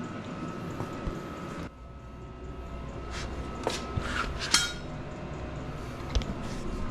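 Pieces of steel being handled in a welding shop: a few sharp metallic clinks and knocks, one ringing briefly, over a faint steady hum.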